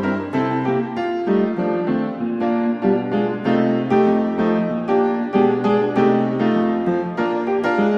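Background piano music: a steady run of notes with regular note attacks.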